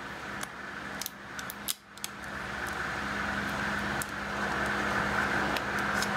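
Loud, steady fan noise with a low hum, which the uploader takes for the air conditioning, slowly getting louder. Over it come scattered sharp crinkles and ticks of plastic wrap being peeled off an AirPods Pro cardboard box.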